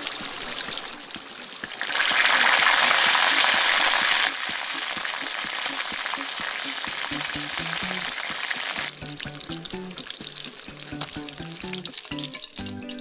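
Spring rolls deep-frying in hot oil in a wok, a dense crackling sizzle that grows much louder from about two seconds in and drops back a little after four seconds. The sizzle thins in the last few seconds, with soft background music underneath.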